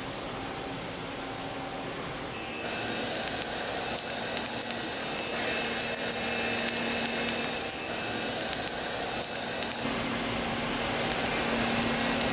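CNC twin-turret turning center cutting a metal part: a steady machining noise with faint whining tones that change pitch a few times as the cuts change, and scattered sharp ticks from about a third of the way in.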